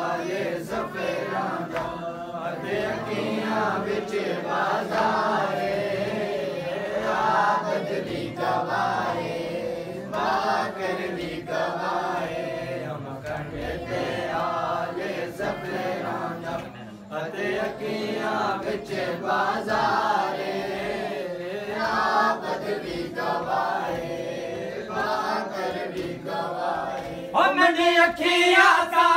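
A group of men chanting a Punjabi noha in unison, in steady repeated phrases, with rhythmic chest-beating (matam) strikes. Near the end a louder, higher voice takes up the verse.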